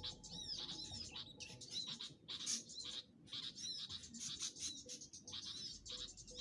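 Small birds chirping: rapid, overlapping high-pitched chirps and short sweeping notes, repeated throughout.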